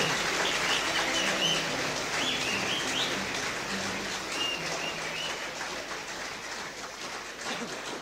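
Live audience applauding at the end of a song, with scattered high-pitched cheers, slowly fading out.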